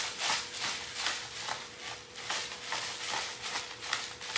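Hand-twisted pepper mill grinding black pepper, a quick rhythmic run of gritty crunches, several a second.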